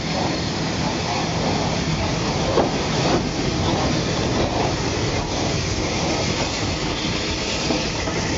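Steam locomotive 34007 Wadebridge, an unrebuilt Bulleid West Country class Light Pacific, running tender-first past at close range: a steady hiss and rumble.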